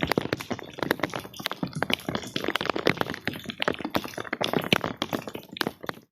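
Wet carpet being scraped and worked by hand in the rain: a dense run of irregular taps, clicks and scraping strokes that cuts off suddenly near the end.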